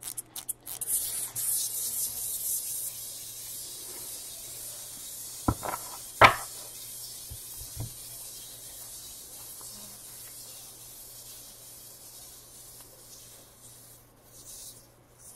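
Soft rubbing and rustling of trading cards and plastic holders being handled, with two sharp clicks about five and a half and six seconds in, over a faint steady electrical hum.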